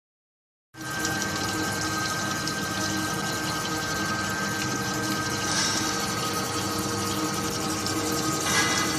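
Wedge wire screen welding machine running: a steady mechanical hum and hiss with a few constant tones, starting just under a second in after silence.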